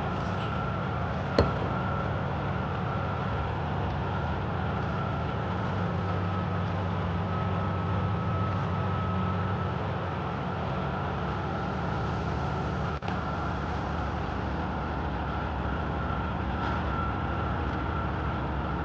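A steady mechanical hum with a constant high whine running over it, and one sharp click about a second and a half in.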